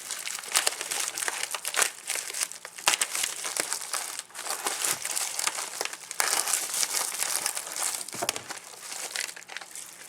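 Packaging being handled and crinkled while tools are unwrapped from a newly delivered toolkit: a dense, irregular crackling with many small sharp crackles throughout.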